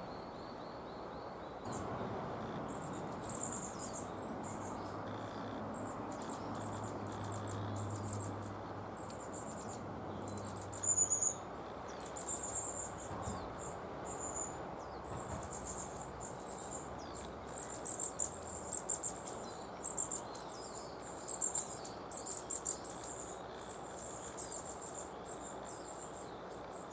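Long-tailed tits calling: many short, very high, thin calls, often several in quick succession, with the loudest bunches in the second half.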